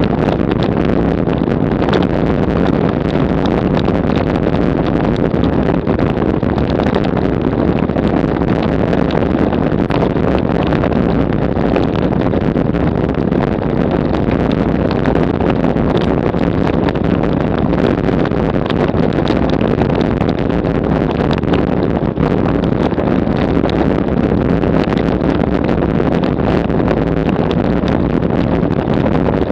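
Road bicycle rattling over rough cobblestones, a loud and steady clatter of the bike shaking on the stones, with a dense run of small sharp knocks.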